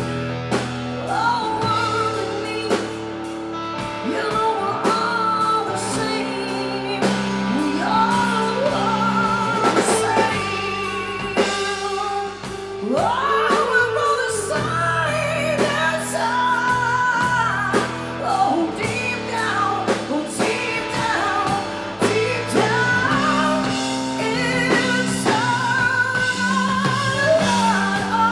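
Live blues band: a woman singing into a microphone over electric guitar, bass guitar and drums.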